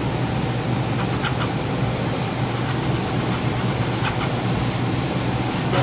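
Steady low machine hum, with a few faint metal clicks from a lever-operated sheet-metal shrinker-stretcher as a strip of steel is worked in it.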